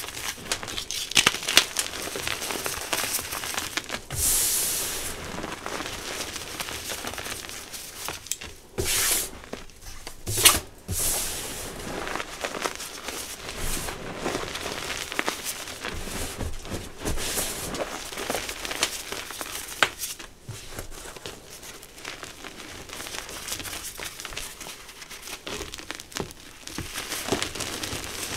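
Reformed gym chalk being crushed and crumbled in bare hands: a continuous dry crunching and crackling, with a few louder crunches about four and ten seconds in.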